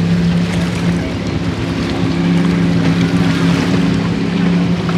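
A boat engine on the river running with a steady drone.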